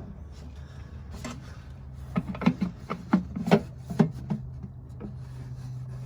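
A drain pan being scraped and knocked as it is wedged into place: a quick run of sharp knocks and scrapes about two seconds in, over a steady low hum.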